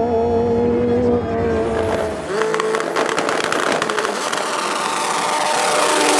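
Racing car engine holding a steady high note, then about two seconds in a different engine takes over, rising in pitch and getting louder as it accelerates, with a spell of rapid crackling.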